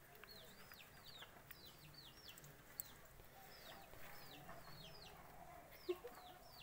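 Faint, quick high chirps from a bird, repeated about two or three times a second, with a couple of small clicks.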